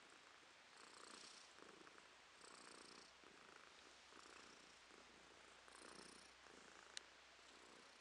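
A domestic cat purring softly, the purr swelling and fading about twice a second with its breathing. A single faint click about seven seconds in.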